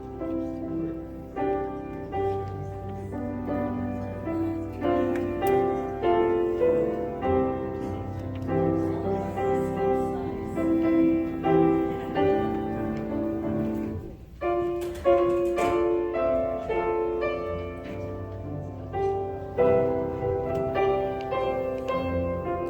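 Slow instrumental music on a piano or keyboard, sustained chords with melody notes, pausing briefly about two-thirds of the way through.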